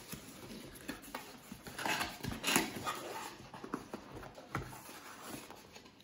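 Cardboard packaging being handled: an inner box slid out of its printed cardboard sleeve and its flaps folded open, giving irregular scraping and rustling that is loudest about two seconds in.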